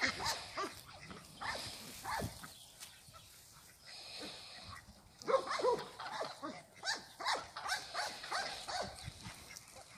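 Flock of domestic ducks and geese calling: many short, overlapping calls, thinning out in the middle, then a louder cluster about five seconds in.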